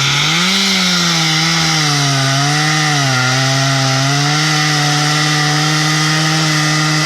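Chainsaw held at full throttle, cutting into the tree. Its pitch dips slightly now and then as the chain takes load, and it winds down right at the end.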